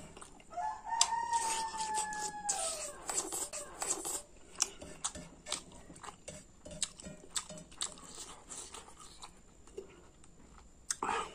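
A rooster crows once: a single long call starting about half a second in and lasting a little over two seconds, dropping in pitch at the end. Close-up eating sounds, sharp clicks and smacks, run throughout.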